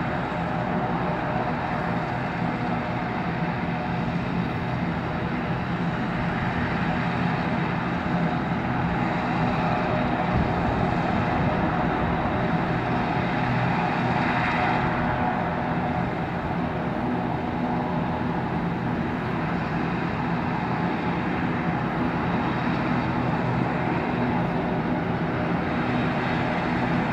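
A Sea King rescue helicopter running on the ground: a steady drone of its turbine engines and rotor, a little louder in the middle.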